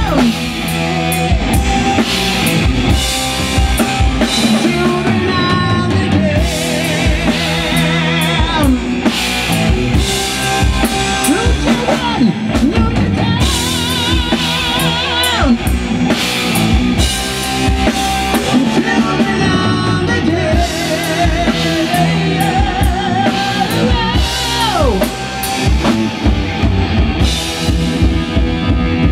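Live heavy metal band playing loudly: a pounding drum kit, distorted electric guitars and bass guitar, with a high wavering lead line over them.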